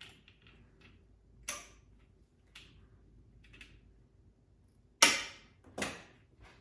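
Handling of wreath-making materials: a few soft rustles and light clicks, then two sharp clicks a little under a second apart near the end.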